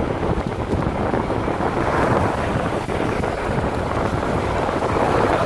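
Wind buffeting the microphone over the steady rumble of a car driving along the road.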